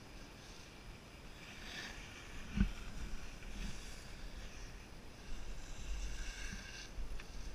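Skis sliding and scraping on groomed snow at speed, a steady hiss, with wind rumbling on the microphone. A single sharp knock about two and a half seconds in.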